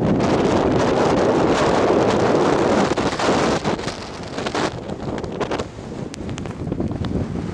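Wind buffeting the microphone during a mountain-top snowstorm, loud and gusty for about the first three seconds, then easing off with smaller gusts.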